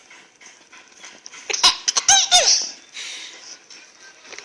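A baby laughing in a short burst of giggles about a second and a half in, the pitch falling through each laugh.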